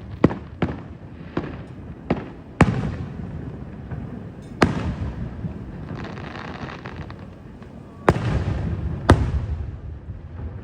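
Aerial fireworks shells bursting: about eight sharp bangs at uneven intervals, each followed by a rumbling echo, with a steady low rumble between them.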